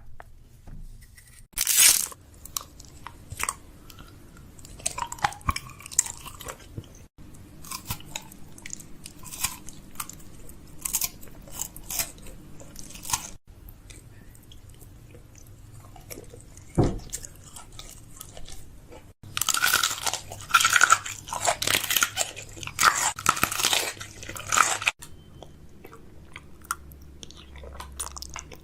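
Crisp crunching and clicking sounds in irregular bursts, with a dense stretch of crackling about two-thirds of the way through.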